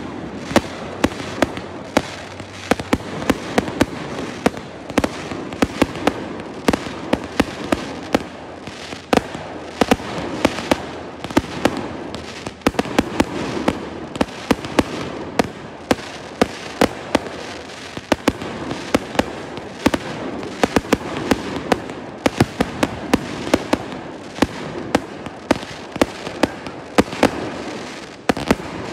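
Aerial fireworks going off in a continuous barrage across the water: sharp bangs and pops several times a second over a steady crackle.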